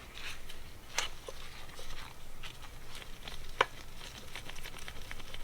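Scattered light clicks and taps of a screwdriver and small metal parts while a motorcycle carburetor is taken apart, with two sharper clicks about one second and three and a half seconds in.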